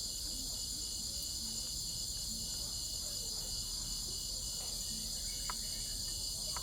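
Crickets chirping in a continuous, high-pitched trill that pulses at an even rate.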